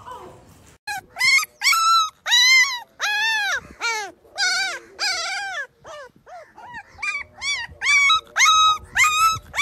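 Labrador puppy crying in a rapid run of short, high whimpering yelps, each one rising and falling in pitch, with a brief lull near the middle.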